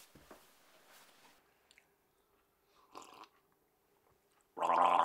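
A man takes a short sip of tea from a mug about three seconds in, then lets out a long vocal 'aah' lasting about a second near the end.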